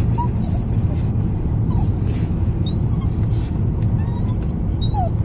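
Steady road and engine rumble inside a moving car's cabin, with a dog whimpering faintly a few times.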